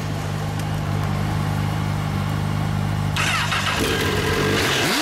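A 2014 Honda CBR1000RR's inline-four engine idling steadily, then revved briefly near the end, the pitch falling back as the revs drop.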